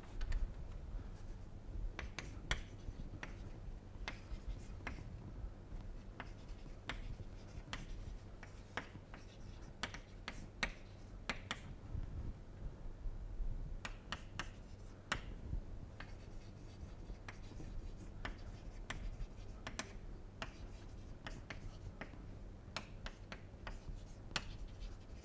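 Chalk writing on a blackboard: irregular quick taps and short scratchy strokes as letters are written, over a low steady hum.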